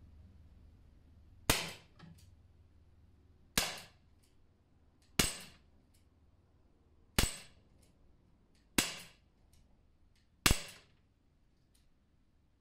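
Umarex SA10 4.5 mm CO2 blowback air pistol firing six shots, one every one and a half to two seconds, each a sharp crack with a short tail. Fainter clicks come between the shots.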